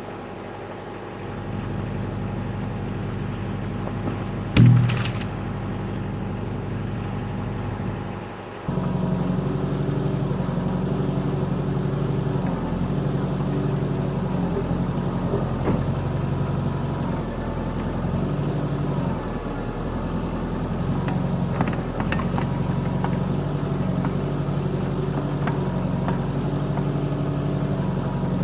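Backhoe engine running while digging, with one sharp knock about four and a half seconds in. From about nine seconds on it is louder, its note dipping and rising in stretches.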